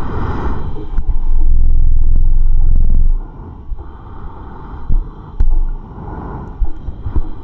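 Breathing through a full-face respirator and its breathing hose. A hissing breath comes near the start, then a long, loud, low rumbling breath from about one to three seconds in, and quieter breaths after it.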